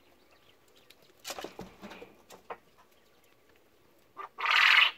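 Male Japanese quail crowing near the end: a short note, then a loud, harsh call of about half a second. Earlier, about a second in, a cluster of soft scuffles from the birds on the litter.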